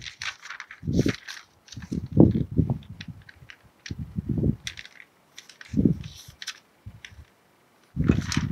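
Writing on a board during a maths lecture: short scratchy clicks and taps, with several low muffled sounds between gaps.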